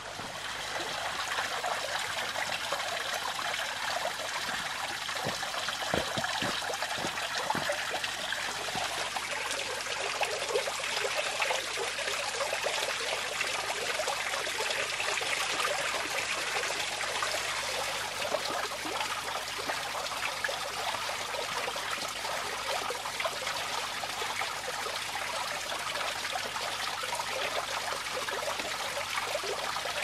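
Running water trickling and splashing steadily, with a few soft low thumps about six to eight seconds in.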